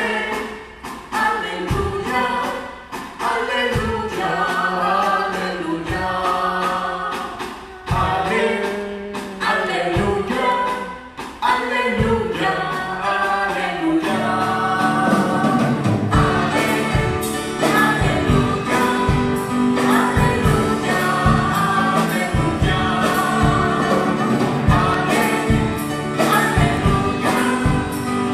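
Church music group singing the acclamation before the Gospel, women's voices into microphones over instrumental accompaniment. For the first half the accompaniment strikes about every two seconds; about halfway through a steady beat and bass line come in and the music fills out.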